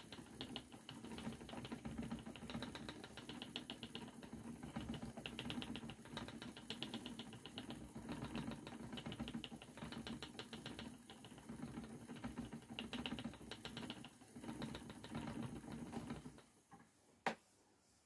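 Spinning wheel running as yarn is spun: a low steady hum with rapid fine clicking that comes in waves. It stops near the end, and one sharp click follows.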